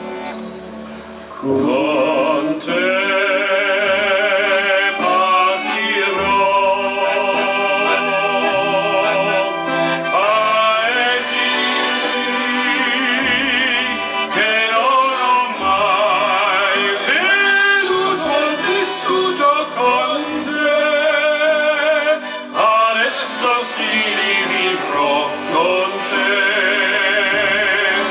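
A Giustozzi piano accordion playing a song, with a man singing over it into a microphone. The sound is briefly quieter in the first second or so, then full.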